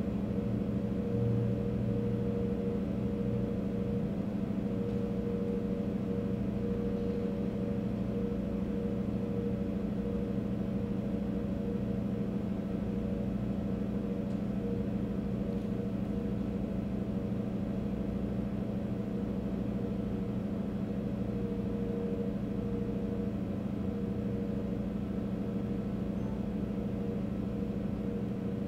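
A steady low droning hum of several held tones, unchanging throughout.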